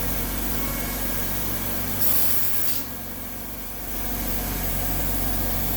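CNC router spindle running as a 4 mm end mill cuts a curved slot in 6061 aluminium, a steady machining noise with a hiss over it. A brief louder hiss comes about two seconds in.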